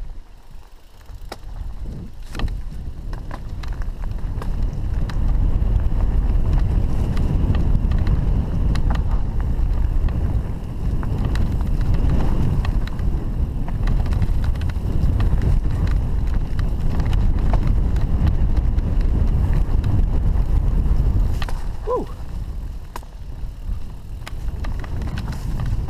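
Enduro mountain bike riding down a dirt forest singletrack: a steady low rumble of tyres on the trail and wind at the camera microphone, with scattered clicks and knocks from the bike. The rumble eases off about four seconds before the end.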